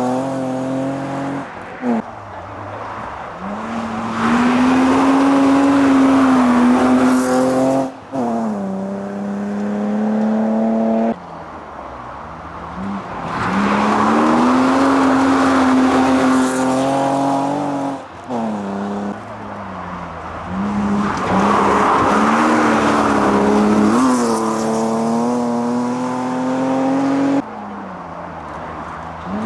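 Historic rally cars passing one after another at full throttle, engines revving hard with rising pitch and sudden drops at gear changes. The sound jumps abruptly from one car to the next several times.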